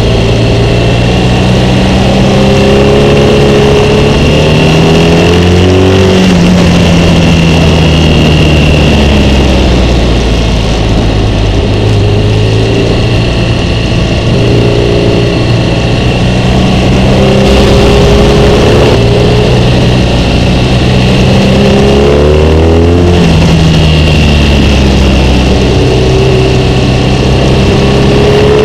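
BMW HP2 Sport's 1170 cc boxer-twin engine, ridden hard through a series of bends. Its pitch climbs and drops again and again as the rider accelerates out of the corners, changes gear and rolls off.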